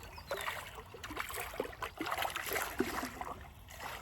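Pond water splashing and sloshing in short, irregular splashes, with a brief faint bird chirp just after the start.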